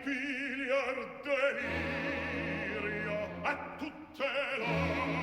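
Operatic singing with a strong vibrato over an orchestral accompaniment, in phrases broken by short pauses.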